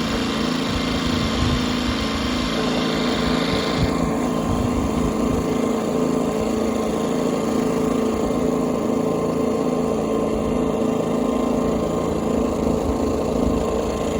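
Harbor Freight Predator 2000 inverter generator engine running steadily. About four seconds in, the higher hiss drops away while the low engine note carries on.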